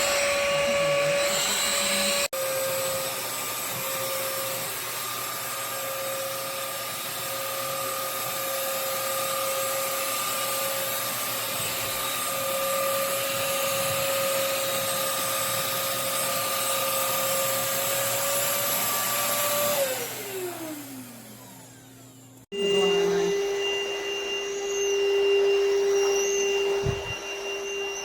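Cordless stick vacuum cleaner running with a steady motor whine. Near twenty seconds in, it is switched off and the motor spins down, falling in pitch and fading. After a cut, it runs again with a lower whine.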